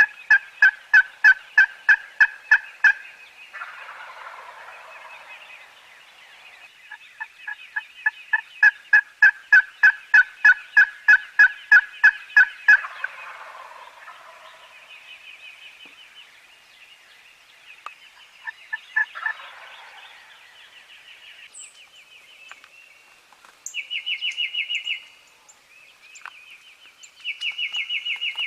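Wild turkeys calling: long runs of rapid, evenly spaced yelping notes at about five a second, broken three times by a rattling gobble, with two loud, dense runs of higher notes near the end.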